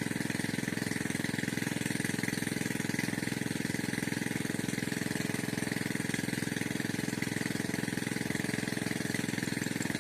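An engine running steadily at an even speed, with a fast, constant beat that does not change.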